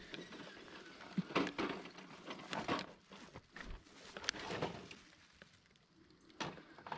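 Footsteps crunching on a dirt and leaf-litter trail, uneven and about a second apart.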